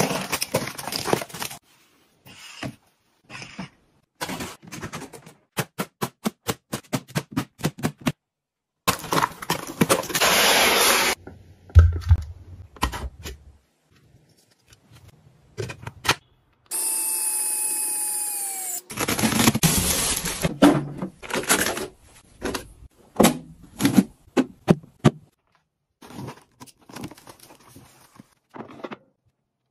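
A series of short household handling sounds: a knife slitting packing tape on a cardboard box, trains of clicks and taps, scraping and rustling, and a small electric motor whirring for about two seconds before its pitch drops near its end.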